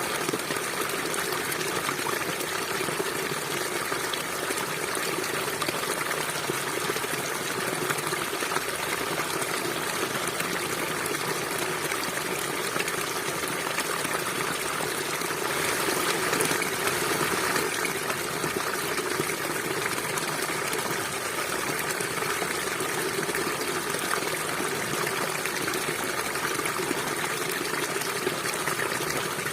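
River water flowing steadily, a continuous rush that swells slightly about halfway through.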